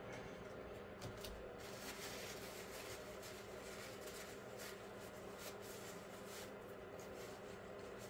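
Faint handling noises, soft rustles and light clicks from a plastic bag and a paper tissue being handled, over a low steady hum.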